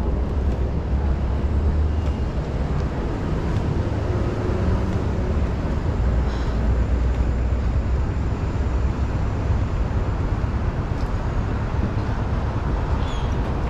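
Steady low rumbling noise of rollerblading: inline-skate wheels rolling on asphalt, with wind on the microphone.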